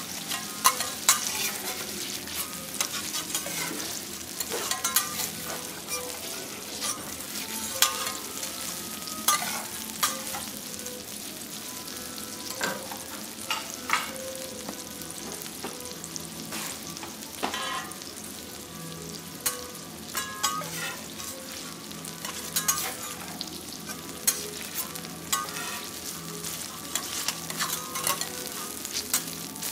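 Food sizzling steadily on a teppanyaki steel griddle, with metal spatulas clicking, tapping and scraping against the hot plate at irregular moments throughout, some strikes briefly ringing.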